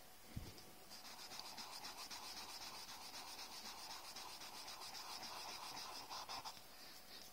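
Cotton swab rubbing quickly back and forth on paper, blending graphite pencil shading: a faint, fine scratchy rubbing that starts about a second in and stops shortly before the end. A light knock comes just before it starts.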